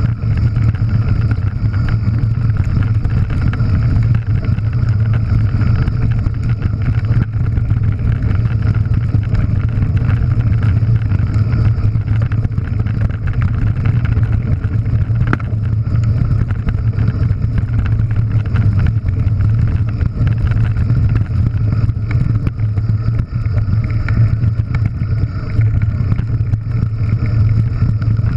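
Steady low wind rumble on the camera microphone as an enduro mountain bike rolls fast down a loose scree trail, with the tyres crunching over stones and the bike clattering and rattling throughout.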